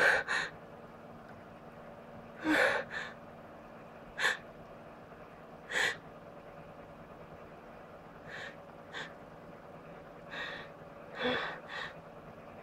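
A person's short, breathy gasps and catching inhales, some with a brief voiced catch, coming every second or two: the build-up to a sneeze that has not yet come.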